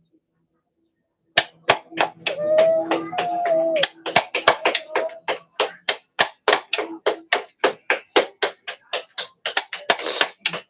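Hammer striking a punch through a thin metal sheet laid on a wooden block, punching holes one after another. The blows are sharp metallic taps about three a second, starting about a second in, with a brief wavering tone over them about two seconds in.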